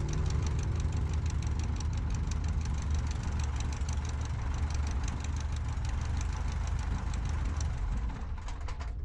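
Pietenpol light aircraft's piston engine running at low power with a steady low rumble and rapid even ticking, dying down near the end.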